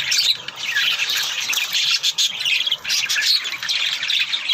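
A flock of small pet birds chirping and squawking all at once, a dense, unbroken chatter of short high calls.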